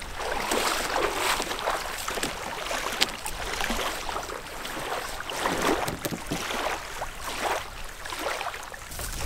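Wind and small wind-driven waves lapping against a canoe and a sand shore, as soft swishes that rise and fall irregularly.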